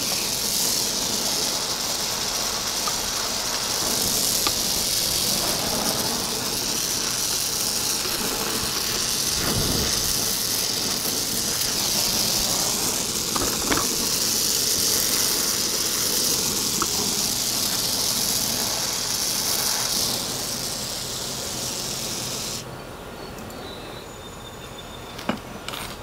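Oxyacetylene torch flame hissing steadily while heating a copper pipe joint for brazing, then cutting off suddenly near the end.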